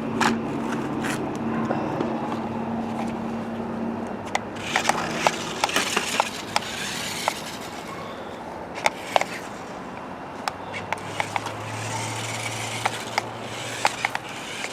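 BEZGAR 4WD remote-control stunt car driving back and forth on its dual electric motors: a steady motor hum that drops lower later on, under the rolling and scraping of its wheels, with scattered clicks and knocks as it moves.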